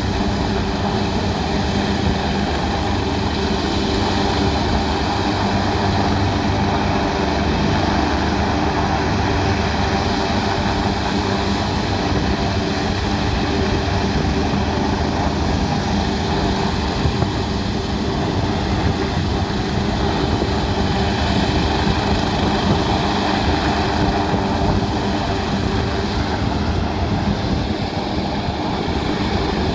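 Helicopter in a steady hover: an even turbine and rotor drone that keeps the same pitch and loudness.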